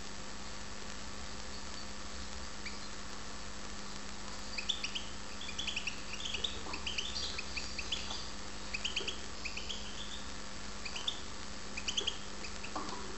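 European goldfinch giving short, soft rising chirps in scattered runs, starting about four seconds in, over a steady low hum.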